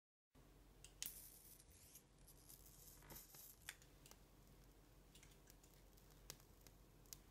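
Near silence: faint room hiss with a few small, sharp scratchy clicks scattered through it.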